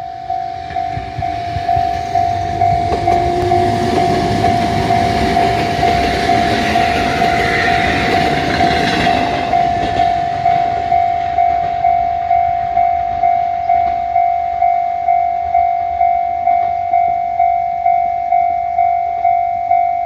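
Railway level-crossing warning bell ringing in a steady, even ding-ding rhythm, about three strikes every two seconds. Under it a four-car Kotoden 1100-series electric train runs past over the crossing, its rumble building to loudest about eight seconds in and fading soon after.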